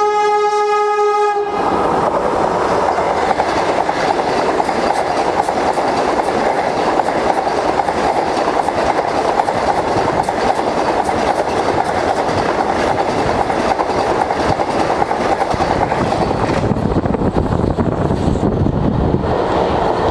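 Vande Bharat electric multiple unit sounding a single steady horn note for about a second and a half. It then runs past at speed with a continuous loud rumble and rapid clicks of wheels over the rail joints.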